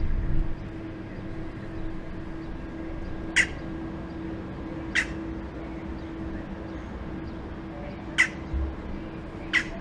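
A bird giving four short calls, spaced one to three seconds apart, over a steady low hum, with a brief low rumble in the first half second.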